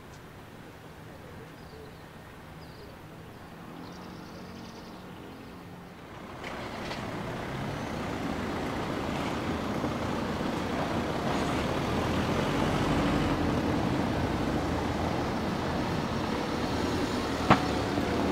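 A motor vehicle's engine running close by, growing louder about six seconds in and staying loud with a steady low hum, and a single sharp click near the end.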